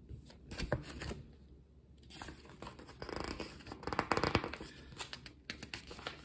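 A picture book's paper pages being handled and turned: irregular rustling and scraping, busiest about four seconds in.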